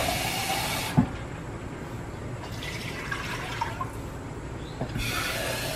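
Kitchen faucet running water into a cup, then shut off about a second in with a knock. After that, water splashes in short pours from the cup into the pressure cooker's inner pot.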